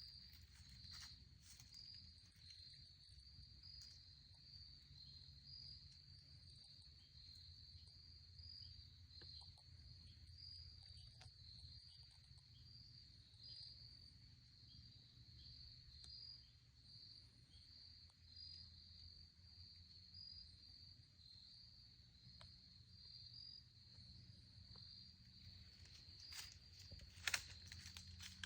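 Faint steady chorus of insects, a continuous high-pitched chirring, over a low rumble; a few rustles and one sharp click near the end.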